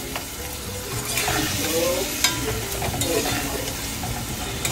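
Pigeon peas and sofrito sizzling in a metal pot while a metal spoon stirs them, with a steady frying hiss and a few sharp clinks of the spoon against the pot.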